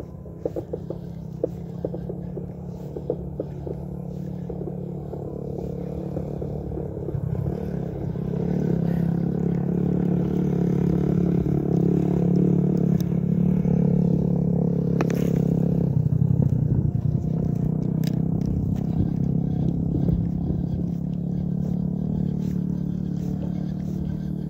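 A vehicle engine running steadily, growing louder about eight seconds in, with light clicks and rattles near the start.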